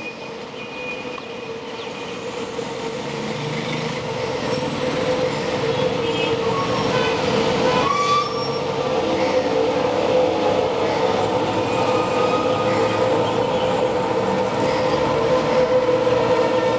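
WDP4B's EMD two-stroke diesel locomotive approaching under power, its steady engine drone and the train's rumble growing louder throughout.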